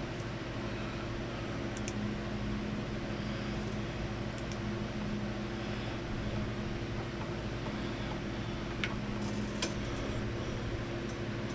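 Steady mechanical hum with an even hiss over it, with a few faint small clicks near the end.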